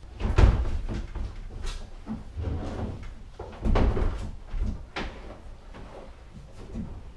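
A kayak being lifted down from an overhead garage rack: irregular hollow bumps and scraping as the hull knocks against the rack, with heavy thuds about half a second in and again about four seconds in.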